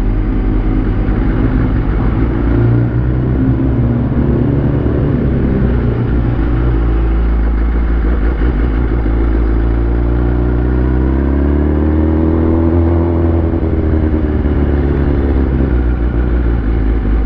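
A superbike's engine heard from on board the bike while riding at low speed, with the engine pitch rising and then falling back once about two-thirds of the way through as the rider opens and closes the throttle.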